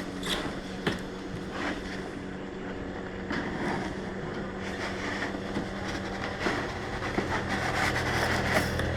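Cardboard shipping box being worked open by hand: scattered scrapes, rustles and small clicks of cardboard and packing. Under them a steady low hum runs throughout.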